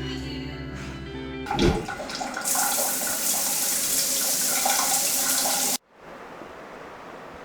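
Background music, then, about two seconds in, water running hard with a steady hiss for about three seconds before it cuts off suddenly, leaving quiet room tone.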